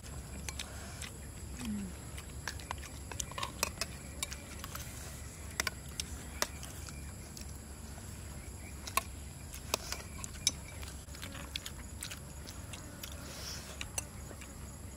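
Metal spoons clicking and scraping against plates while people eat rice, heard as scattered sharp clicks, with quiet chewing.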